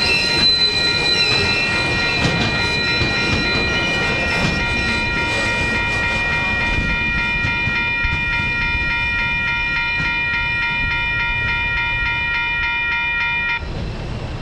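Loaded cement hopper wagons rolling over a level crossing with a steady rumble and a brief wavering wheel squeal at the start. The crossing's warning bell rings over it in a quick steady pulse, about three strikes a second, and cuts off shortly before the end once the train has cleared.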